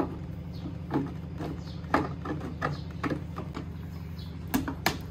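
Irregular light knocks and taps as white plastic frame pieces of a hydroponic rack are handled and pressed together, over a steady low hum.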